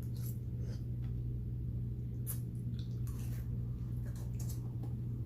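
Close-up chewing and mouth sounds from eating beans and rice: scattered soft wet smacks and clicks over a steady low hum.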